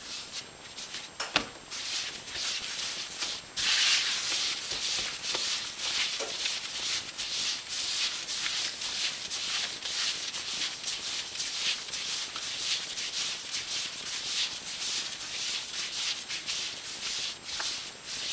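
Hands dragging a ball of damp bread dough across a floured tile countertop in quick repeated strokes, a dry rubbing and scuffing. The friction against the tile tightens the dough round's bottom seam as it is shaped into a loaf.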